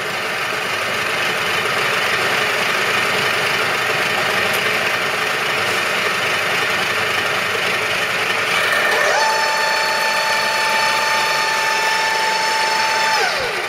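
Union BFT125/5 horizontal boring machine's spindle feed drive running as the spindle traverses back in, stepped up in speed. A steady mechanical running noise; about nine seconds in, a whine rises and holds a steady pitch, then falls away just before the end.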